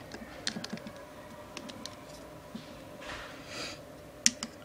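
Small plastic clicks and taps from a plastic iPod touch charger case being handled and fitted together by hand, with a short soft rubbing slide about three seconds in and a sharper click near the end.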